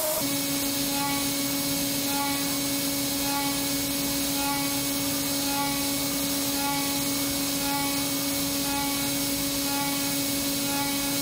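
CNC milling machine cutting an aluminium cylinder head's port with an end mill: a steady spindle whine over a hiss, with a short higher tone repeating about once a second.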